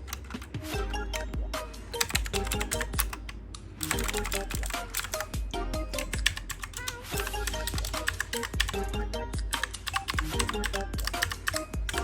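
Rapid typing on an Aula mechanical keyboard: a dense run of key clicks that thins out briefly about three and a half seconds in, over background music.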